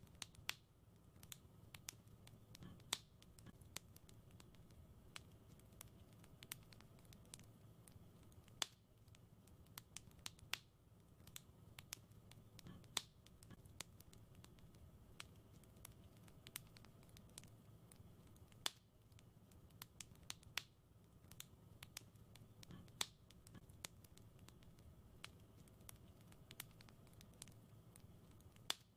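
Wood fire crackling in a fireplace: irregular sharp pops and snaps, a few much louder than the rest, over a soft low rumble of the burning.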